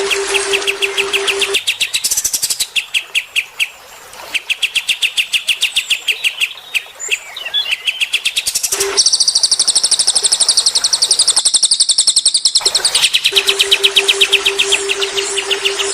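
Small songbirds singing in fast, repeated chattering trills, with a higher, louder trill taking over in the middle. A steady low tone sounds under the song at the start and again near the end.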